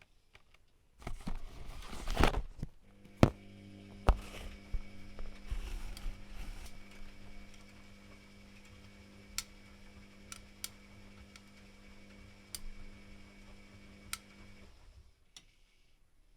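Privileg Classic 30612 washing machine mid-cycle: a rush of water sounds and two sharp clicks, then a steady motor hum for about twelve seconds that stops abruptly near the end, with scattered light ticks.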